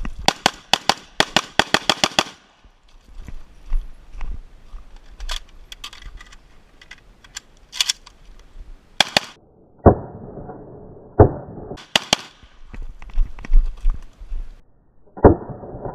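Rifle fire. A fast string of about ten shots comes in the first two seconds, then slower single shots and pairs follow with pauses between them.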